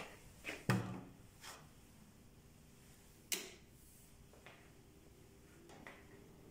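Wooden door with a metal lever handle being opened: latch and handle clicks, the loudest a knock just under a second in, then one more sharp click about three seconds later.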